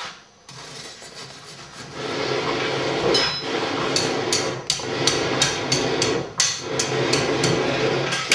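Coal forge fire roaring under its air blast, the blast growing louder about two seconds in, with a run of sharp taps about three a second from about three seconds in.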